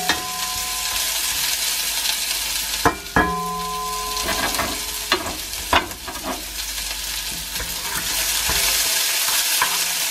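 Red onion rings sizzling as they fry in oil in a frying pan, with a few sharp clicks of tongs against the pan as the rings are turned.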